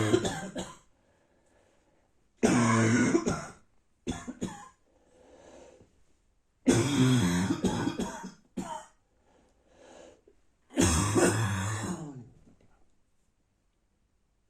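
A person's dry, barking cough from a bad cold: four loud, harsh bouts with a few short coughs between them.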